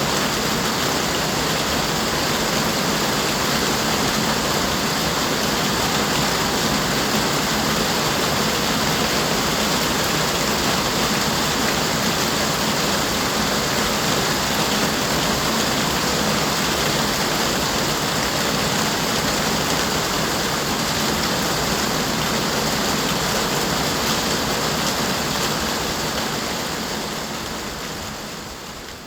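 Steady rain falling, an even hiss with no separate drops standing out, fading down over the last few seconds.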